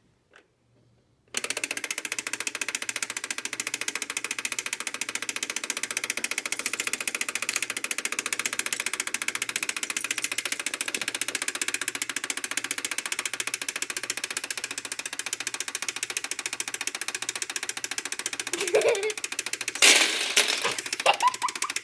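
Perfection game's wind-up timer running after being set, a rapid, even mechanical ticking that starts about a second in. Near the end a brief loud clatter and a short voice cut in over it.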